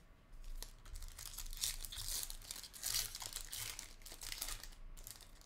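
Foil wrapper of a Bowman University Chrome trading-card pack being torn open and crinkled in the hands. The crackling starts about half a second in, is loudest in the middle, and dies down near the end.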